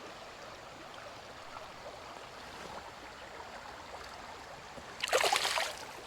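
Creek water running steadily around a wading angler. About five seconds in comes a short, louder noise, likely water being disturbed close to the microphone.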